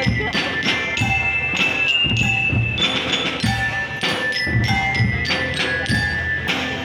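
School marching band playing: bell lyres ring out a melody of held notes over a steady beat of snare drums, bass drum and cymbals.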